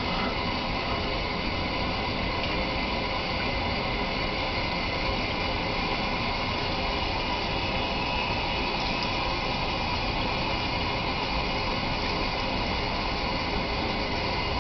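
Sink faucet running steadily, water splashing as a newborn's hair is rinsed under it.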